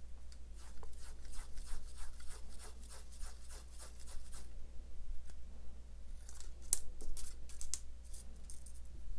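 A slim metal tool scraped along a narrow strip of quilling paper to curl it. There is a quick run of short scraping strokes for about four seconds, then a pause and a few more strokes near the end.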